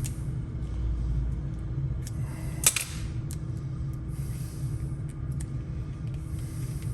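Hand work on vinyl wrap film: a few faint clicks and short rustles, with one sharp click about two and a half seconds in, over a steady low hum.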